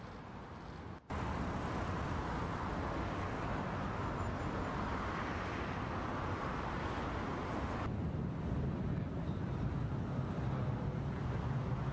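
Steady outdoor background noise: a hiss with a low rumble like distant city traffic. It jumps louder at a shot change about a second in and turns to a deeper rumble at about eight seconds.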